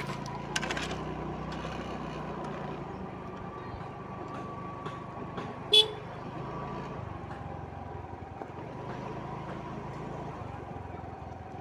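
Motor scooter running steadily at low speed, with one short horn toot about six seconds in.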